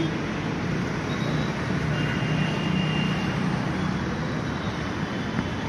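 Steady road traffic on a city street, a continuous blend of passing vehicles with no single event standing out.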